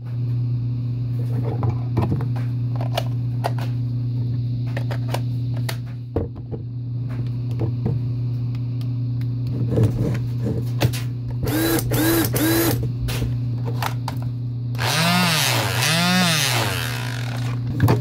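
Cordless Porter Cable 18-volt tools run off a 20-volt lithium battery through an adapter: three short trigger pulls of a motor a little past halfway, then two longer whirs that rise and fall, each speeding up and slowing down. Plastic clicks come from the battery pack being fitted and handled, over a steady low hum.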